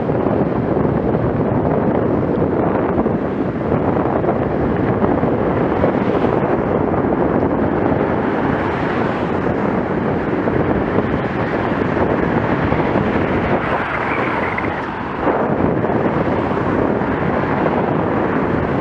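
Steady wind noise buffeting the microphone of a camera on a moving bicycle. The level drops briefly about fifteen seconds in.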